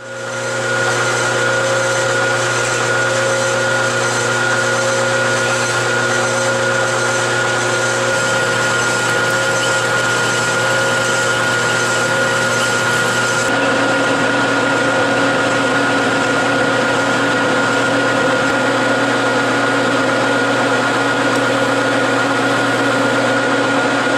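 Metal lathe running steadily, motor and drive giving a constant high whine under a steady mechanical hum. About halfway through the higher hiss drops away and a lower tone comes in, and the sound cuts off suddenly at the end as the lathe stops.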